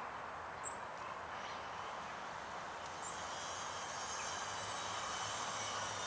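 Steady distant transport noise that grows a little louder from about halfway, when a thin, high, steady whine joins it. A single short, high chirp sounds near the start.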